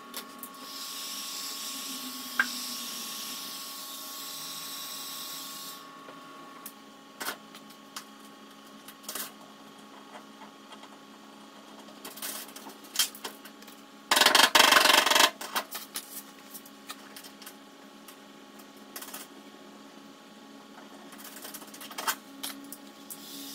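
Clicks and taps of a suction-cup dent lifter being set and worked on an aluminium car bonnet, with a heat gun blowing for the first few seconds and starting again near the end. A loud rush of blowing noise lasts about a second midway.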